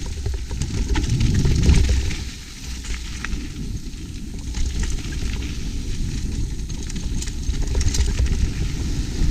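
Mountain bike rolling down a rough trail, heard through a helmet-mounted action camera: a steady low rumble of wind on the microphone and tyres, with many small clicks and rattles from stones and the bike's parts. The rumble swells about two seconds in, then drops briefly.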